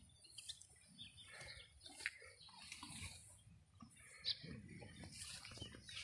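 Quiet rural ambience: a cow grazing close by, with a few soft tearing clicks as it crops grass, and faint bird calls.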